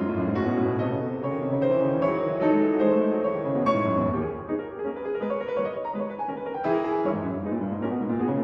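Instrumental background music with a piano-like keyboard melody, a run of notes changing every fraction of a second.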